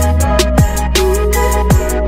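Electronic background music with a heavy beat: deep kick drums that drop in pitch, sharp percussion hits and a held bass note under sustained tones.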